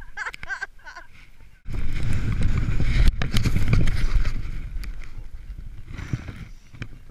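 A voice briefly. Then, about a second and a half in, a sudden loud rush of wind buffeting a point-of-view camera's microphone as a snowboard slides through powder snow. It eases off toward the end.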